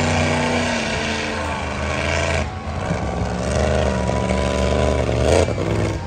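Engines of lifted mud trucks running and revving as they drive the muddy track; the pitch rises and falls repeatedly over a steady low rumble.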